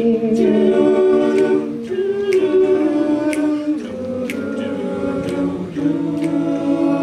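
Male a cappella group singing sustained harmony chords that shift every second or two, with a sharp tick about once a second.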